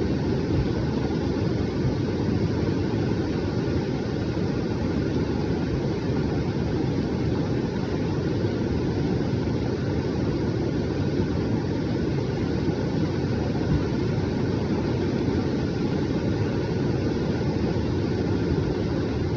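Rushing floodwater: a steady, unbroken rush of noise, heaviest in the low range.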